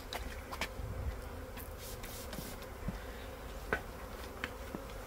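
A swarm of honeybees in flight, buzzing as a steady, even hum while the cluster is being scooped into a hive.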